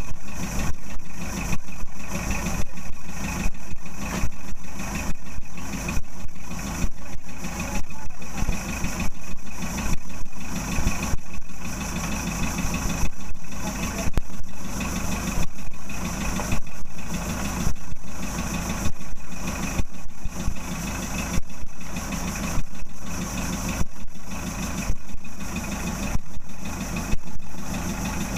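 A moored wooden fishing boat's inboard engine idling, running with a steady, regular pulsing beat.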